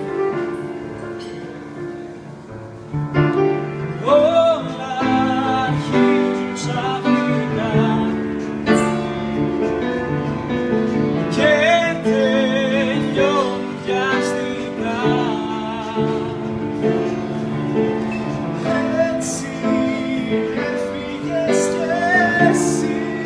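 Grand piano played live, with a man's voice singing a song over it; the voice comes in about four seconds in, with vibrato on held notes.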